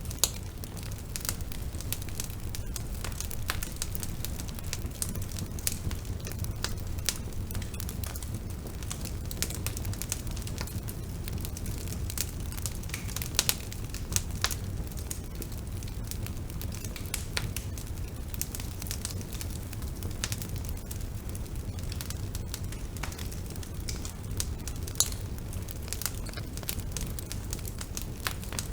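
Bonfire burning with a steady low rumble of flames and frequent sharp crackles and pops from the burning wood, a few louder snaps among them.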